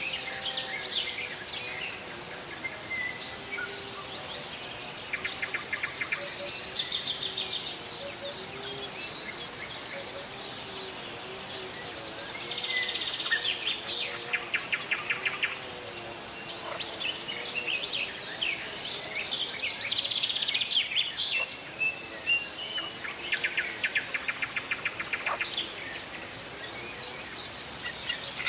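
Several songbirds singing and chirping, with a burst of rapid trill every few seconds. Under them runs a faint, low, wavering tone.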